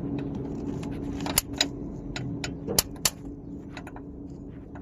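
Electrical sparks snapping as direct battery supply is touched to the starter motor of a JCB boom loader: several sharp crackles, with no cranking over a faint steady hum. The starter only sparks and does not turn because it is seized.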